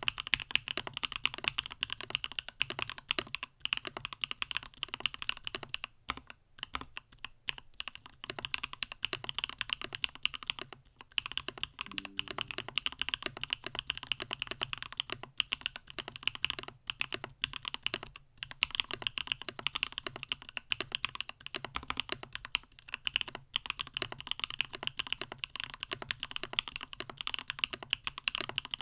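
Continuous fast typing on a mechanical keyboard with Gateron Smoothie switches in a stacked-acrylic CannonKeys StackedTKL case: a dense run of key clicks with a few short pauses.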